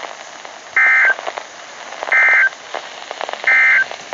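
Emergency Alert System end-of-message: three short identical bursts of SAME digital data tones, about a second and a half apart, over a background of hiss and crackle.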